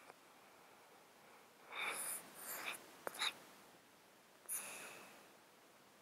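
A sleeping cat's snotty, congested breathing close to the microphone: a run of noisy breaths with a sharp click about two to three seconds in, and one more breath about a second and a half later. The snottiness comes from a long-standing illness that keeps the cat congested.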